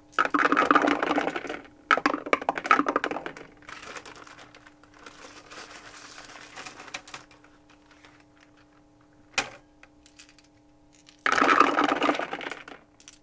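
Dice clattering down through a dice tower and into its tray: two dense loud bursts at the start, quieter rattling for a few seconds after, a single click, then another loud clatter near the end.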